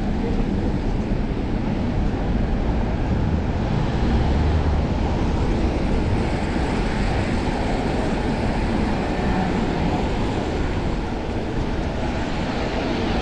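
Steady rushing of wind over a chest-mounted action camera's microphone on a moving bicycle, mixed with tyre and street-traffic noise.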